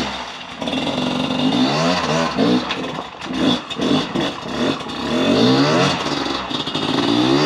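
Dirt bike engine revving hard in repeated bursts, its pitch rising and falling every second or so as the bike is worked up a steep rocky climb.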